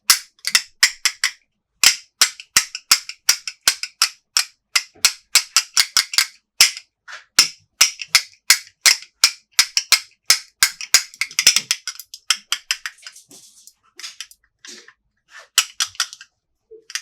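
Quick run of sharp taps and clicks from hands handling small plastic toy pieces and packaging, about three or four a second, with a brief rustle a little past the middle and sparser clicks near the end.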